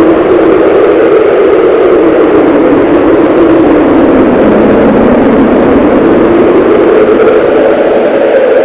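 Cartoon wind sound effect: a loud, steady rush of wind noise whose pitch slowly sinks, lowest about five seconds in, then rises again.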